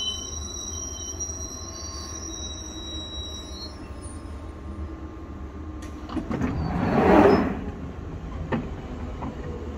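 London Underground 1996 Stock Jubilee line train drawing to a stop, its brakes squealing in high steady tones that fade out after about three seconds, over a low rumble. About six seconds in come a few clicks and then a loud rushing noise, the loudest sound, as the doors open.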